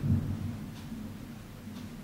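Thunder dying away: a low rumble swells briefly at the start, then fades to a faint, steady low rumble.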